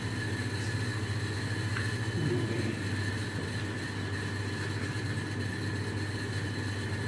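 Steady low mechanical hum, like a small motor running, with a faint steady high-pitched whine over it.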